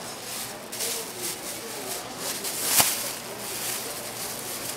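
Plastic bag crinkling and rustling in quick bursts as a gloved hand inside it scoops chopped sundae (Korean blood sausage) off a wooden board, with one sharp knock about three seconds in.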